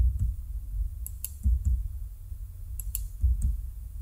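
Computer keyboard and mouse clicks: a handful of separate clicks, coming in pairs about every second and a half, each with a dull low thud, as Tab keystrokes and cursor clicks are made.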